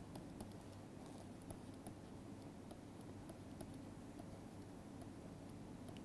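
Faint, irregular clicks and taps of a stylus on a writing tablet as an equation is written out by hand, over a low steady hum.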